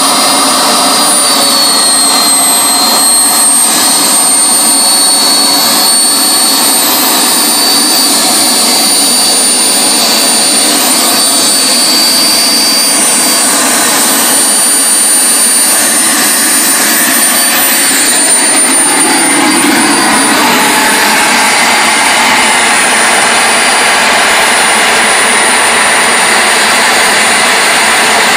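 K170 model turbine jet engine running steadily at idle, a high-pitched whine over a loud, even rush of exhaust. The whine drops slightly about two seconds in, then holds steady.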